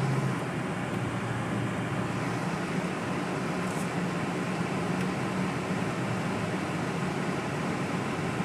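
Steady noise inside a moving car's cabin: the defroster fan blowing on high over the low hum of the engine and tyres on the snowy road.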